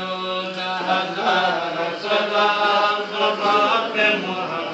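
Men's voices chanting a devotional chant with long held notes, several voices overlapping.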